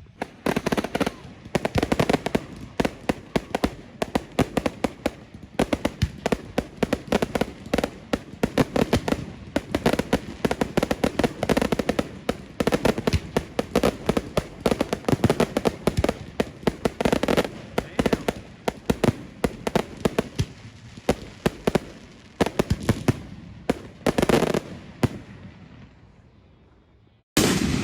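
Fireworks going off in rapid succession: a dense, continuous run of sharp pops and bangs that thins out and dies away near the end.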